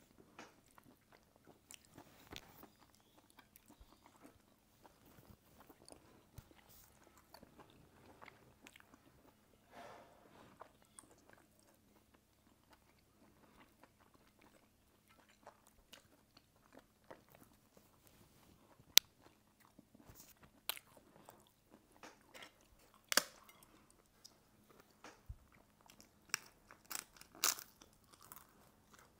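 Close-up eating sounds: soft chewing and mouth noises from two people eating curry and flatbread by hand, with sharp crunches of thin crisp crackers (papadum) coming more often in the last third.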